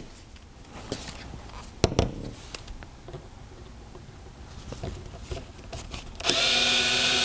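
Cordless electric screwdriver with a 1.5 mm hex bit starting up about six seconds in and running steadily, backing out a small hex screw from an airgun action. Before it, a few light clicks and knocks.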